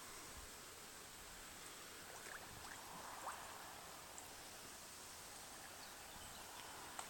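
Faint steady outdoor background hiss with a few soft, short ticks or chirps, the loudest about three seconds in and another near the end.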